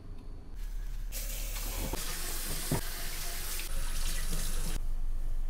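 Kitchen tap running into a stainless steel sink as a bowl is rinsed under the stream, starting about a second in. A couple of short knocks sound partway through.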